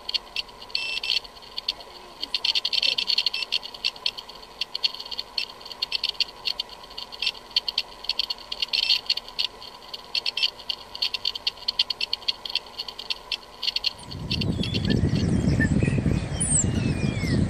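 Running power inverter: a steady high whine with fast, irregular crackling. About fourteen seconds in it gives way to wind buffeting the microphone, with a few faint bird chirps.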